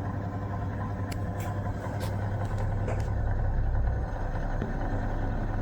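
1973 National F-30AAD table fan running on low: a steady motor hum with a rush of air from the shark-fin blades. It turns slower than it should, which the owner puts down to gummed-up bearings and gearbox grease. A few light clicks come between about one and three seconds in.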